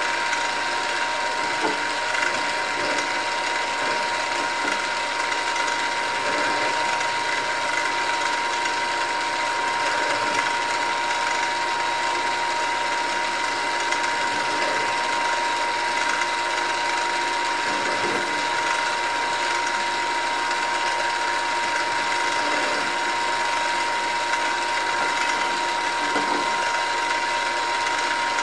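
Mill-drill running steadily under power, a steady mechanical whine with a deburring countersink spinning in the chuck. A few faint ticks and scrapes come as the drilled steel plate is slid around under the cutter to deburr the backs of the holes.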